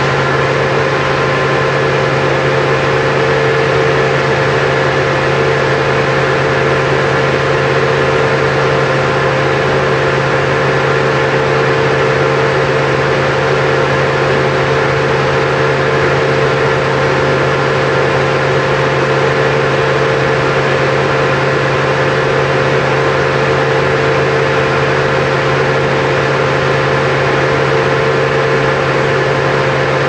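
Claas Lexion 770 combine harvester running steadily under load while harvesting maize with a Geringhoff nine-row corn header, a constant engine and machinery hum with a few fixed pitches.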